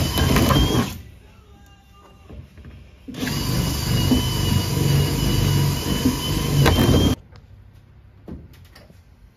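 Power drill running in two spells: about a second at the start, then about four seconds from roughly three seconds in, with a steady motor whine. Quieter clicks and handling noises fill the gaps between.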